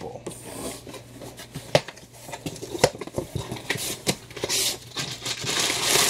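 Cardboard shipping box and its contents being handled: paper and cardboard rustling and scraping as the flap is moved and comics are pulled out. A few sharp knocks come about two and three seconds in.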